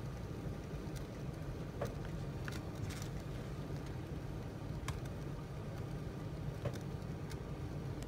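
Wood fire burning in a fireplace, with fuses sputtering and throwing sparks. A low steady rumble runs throughout, with a sharp crackle roughly once a second. No firecracker has gone off yet.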